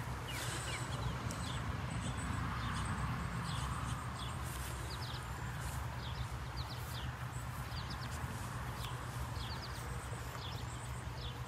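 A rag rubbing in slow circles on a plastic kayak hull, wiping it down with denatured alcohol, while small birds chirp in short, quick notes again and again over a steady low rumble.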